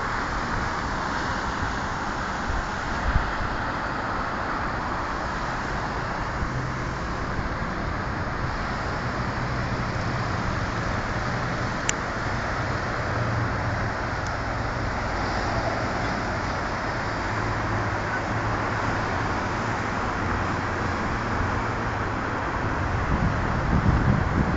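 Steady, even hum of distant road traffic, with a faint low drone underneath.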